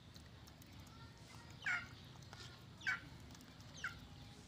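Chicken calls: three short, high calls about a second apart, each falling in pitch.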